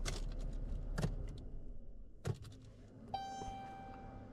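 A few light clicks, then a steady electronic tone that comes on about three seconds in and holds.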